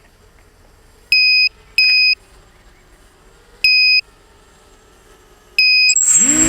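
Four short, loud electronic beeps, the first two close together and the others spaced about two seconds apart. Near the end the motors of a 250-size FPV racing quadcopter spin up with a rising whine that then holds steady.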